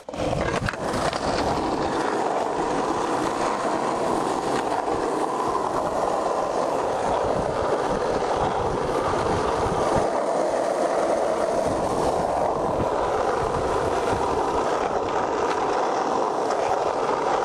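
Skateboard wheels rolling steadily over an asphalt road, one continuous, unbroken roll.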